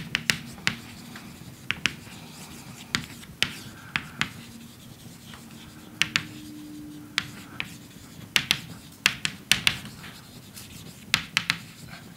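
Chalk writing on a blackboard: irregular sharp taps and short scratches, some in quick clusters, as each letter is struck and drawn.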